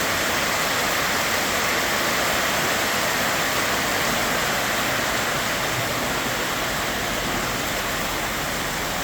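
Heavy rain of big, wet drops falling steadily: an even, dense hiss.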